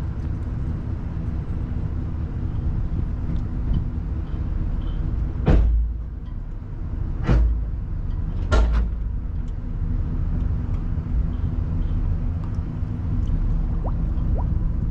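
An engine idling with a steady low rumble. Three sharp knocks stand out over it, spread over about three seconds near the middle.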